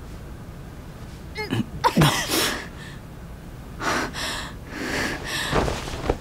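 A person's non-speech vocal sounds: two short falling cries about a second and a half in, then breathy bursts, the loudest just after the cries and two more near the middle and end.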